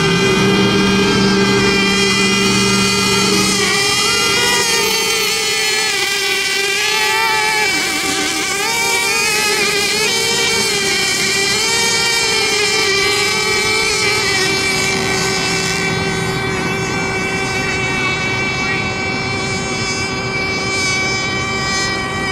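Several radio-controlled racing boats running flat out: a steady, high-pitched motor whine whose pitch wavers and bends in the middle stretch as the boats pass and turn.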